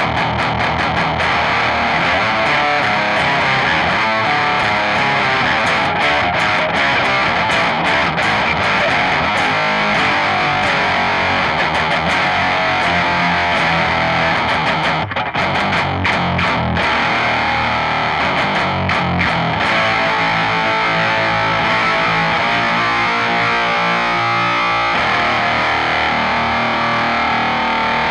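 Electric guitar played through a Boss HM2 Heavy Metal distortion pedal with all controls maxed, giving its heavy, buzzing 'chainsaw' distortion tone. Riffing with sustained chords and choppy muted passages, briefly dipping about halfway through.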